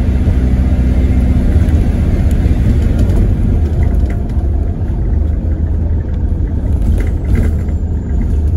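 Inside an ADL Enviro400H hybrid double-decker bus under way: a loud, steady low rumble from the drivetrain and the road, easing a little in the second half.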